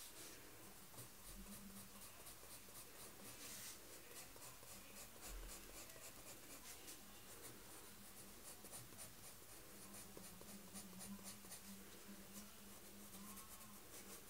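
Green coloured pencil shading lightly on drawing paper: a faint, quick, even scratching of back-and-forth strokes, several a second.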